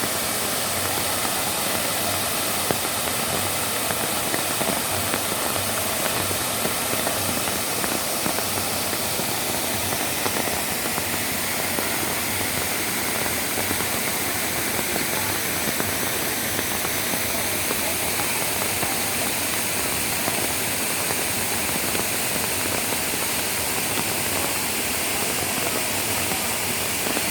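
Steady rushing noise of falling water.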